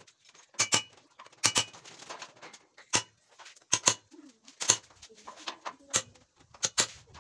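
Hammer tapping a punch held against a steel fence bracket: about eleven sharp metal-on-metal strikes, often in quick pairs, each with a brief ring.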